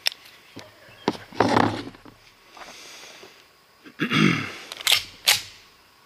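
Metallic clicks and clacks of a Sig Sauer 1911 pistol being handled, its slide being worked by hand, including two short rattling clacks and two sharp snaps about half a second apart near the end.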